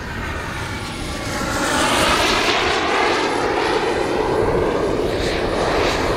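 Gas turbine of a large model jet running as the jet rolls along the grass after landing, a steady rushing jet noise that swells about two seconds in as it comes closer.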